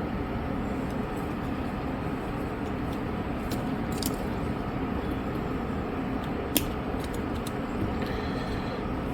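A steady background hum with a few small, sharp clicks of fine repair tools on a phone. The sharpest click comes about two-thirds of the way through.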